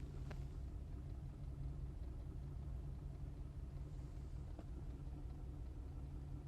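2005 Cadillac CTS 2.8L V6 idling roughly with a misfire: a steady low engine note that flutters unevenly.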